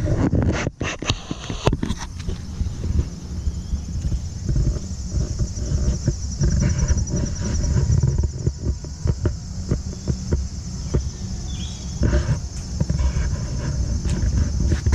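Steady high-pitched drone of insects, under a loud low rumble and scattered irregular knocks from the camera being carried along on foot.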